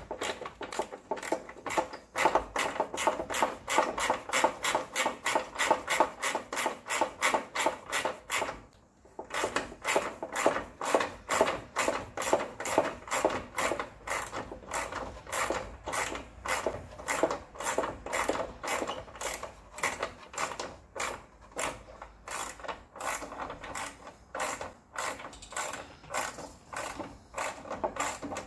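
Socket ratchet clicking steadily, about three to four clicks a second, as a 10 mm deep socket backs out the headlight mounting bolts on a 1998 Ford Escort. There is a short pause about nine seconds in before the ratcheting resumes.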